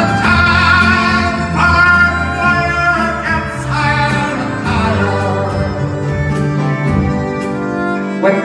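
A man singing a slow folk ballad into a microphone, accompanied by his own strummed acoustic guitar, heard through a live PA.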